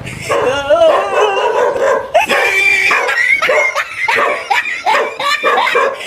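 A dog barking and yelping in a rapid string of short, wavering calls, alarm barking at a stuffed toy tiger carried toward it.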